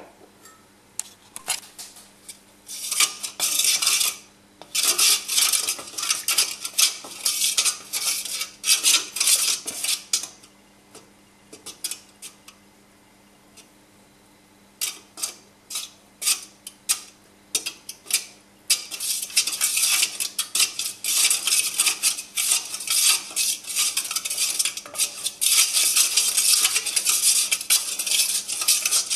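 A wooden spoon stirring a liquid in a stainless steel pan, scraping and knocking against the metal sides in quick strokes. The stirring comes in bursts with short pauses at first, then keeps going steadily from about two-thirds of the way through.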